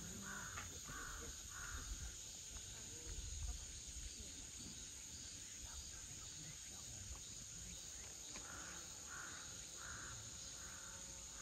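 A crow cawing in two runs of about five caws each, one at the start and another from about eight seconds in, with a steady high insect whine behind.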